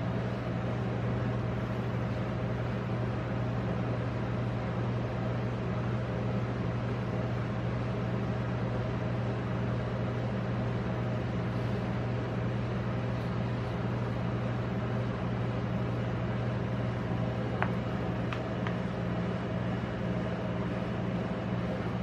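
Steady low hum of a rolled-ice-cream machine's cold-plate refrigeration compressor, with a few faint clicks about two-thirds of the way through.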